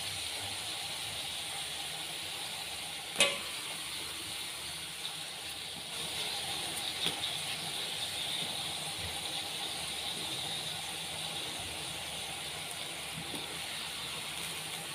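Blended spice paste, onion and tomato pieces frying in hot oil in a wok, a steady sizzling hiss. One sharp knock about three seconds in.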